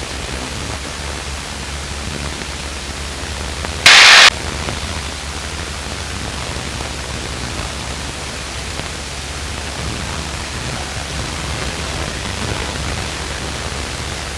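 Steady hiss of static on a light aircraft's cockpit intercom and radio audio, with a low steady drone of the engine under it. About four seconds in, a short, loud burst of static cuts in and stops, like a radio squelch break or a keyed transmission.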